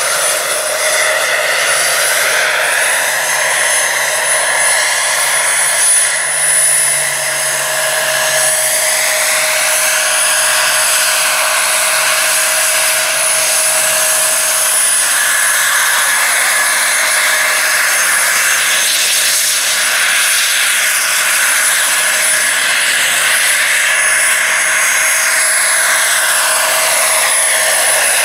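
Turbine engine of a giant radio-controlled Bell 412 scale model helicopter running in flight: a loud, steady high whine with several pitches that glide up and down as the helicopter moves around.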